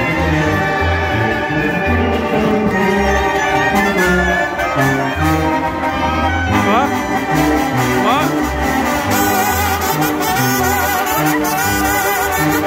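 Live brass band playing a dance tune: a sousaphone bass line stepping between notes under trombones and trumpets, with bass drum and cymbals keeping the beat. There are two short upward slides about seven and eight seconds in.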